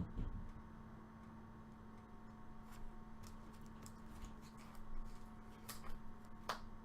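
Faint scattered clicks and light rustles of trading cards being handled and flipped through, over a steady electrical hum.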